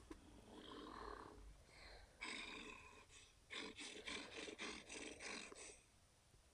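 Custom-made Burning Godzilla roar sound effect, faint: a short growl about two seconds in, then a stuttering run of about eight growling pulses.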